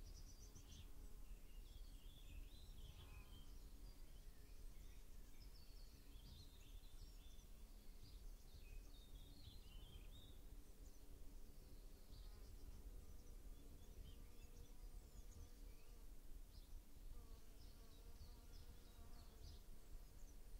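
Faint outdoor ambience on a grassy slope: small birds chirping on and off in the distance, and an insect buzzing low in the background, more noticeable near the end, over a steady low rumble.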